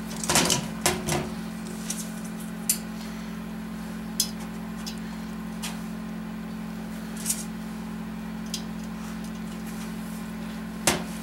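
Sharp metal clicks and clinks of a lever-type valve spring compressor and steel valve springs, retainers and keepers being worked on a 5.7 Vortec cylinder head: a quick cluster in the first second, then single clicks every second or two. A steady low hum runs underneath.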